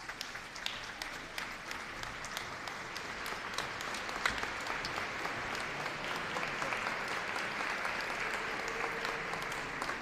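A large crowd applauding, many hands clapping together, swelling a little louder partway through.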